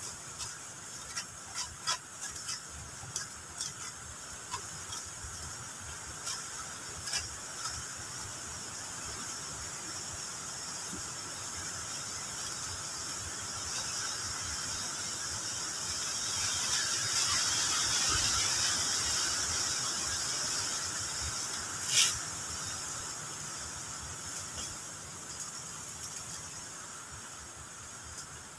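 Steady high-pitched chorus of forest insects that swells in the middle, with a run of sharp knocks from chopping at wood over the first several seconds and one loud knock about three-quarters of the way through.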